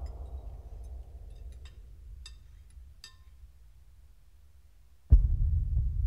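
A low rumbling tail of trailer music fading away, with a few faint clinks of cutlery and glass. About five seconds in, a sudden deep hit lands and a low steady drone begins.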